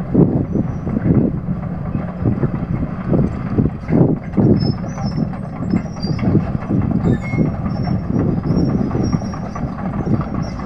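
Heavy demolition machinery working: a continuous low rumble with irregular clanks and knocks about twice a second, and faint high metallic squeaks from about the middle on.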